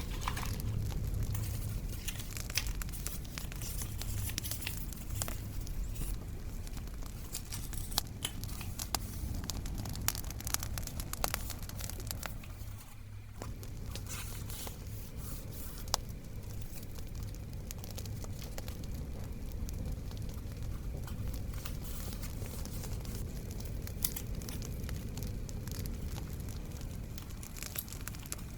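Paper being handled, torn and crinkled, with sharp scattered pops and a steady low rumble of a crackling bonfire underneath.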